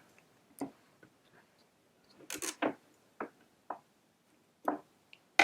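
Sticky tape being handled, pulled off and torn: a few short scrapes and clicks, the loudest a brief rasping tear about two and a half seconds in.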